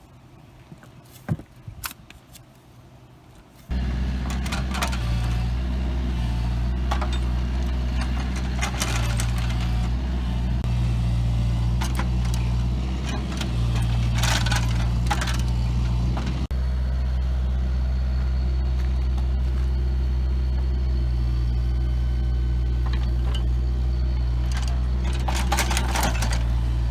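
A few faint clicks, then an engine comes in abruptly about four seconds in and runs steadily with a low, even hum, with occasional rattles and clicks over it.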